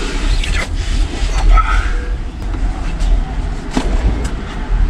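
Low outdoor rumble of wind and street traffic coming in through an open car door, with cloth rustling and a few sharp knocks as a towel-covered pet carrier is lifted off the back seat.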